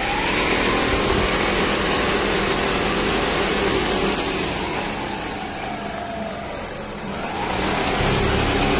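A vehicle running at speed: a loud, steady rush of noise with a whine whose pitch rises, then slowly falls, and climbs again near the end.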